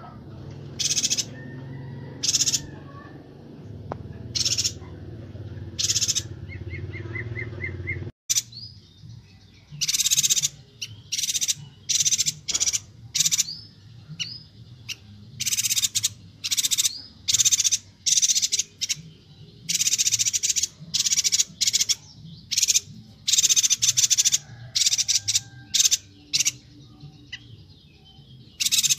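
Yuhina (perenjak batu) calling in short, loud, high-pitched chirps, one after another. After a brief break about eight seconds in, the chirps come in quick, dense runs.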